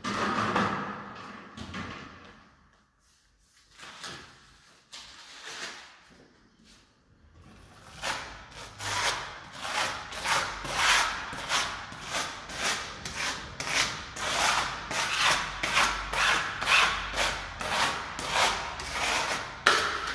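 A small trowel scrapes decorative paint across a stencil held flat against a wall, in quick repeated strokes about two to three a second. This follows a quieter few seconds with only scattered light taps.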